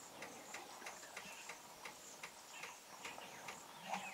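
Faint natural bush ambience: a steady high hiss with a regular ticking about three times a second, and a few short whistled glides near the end.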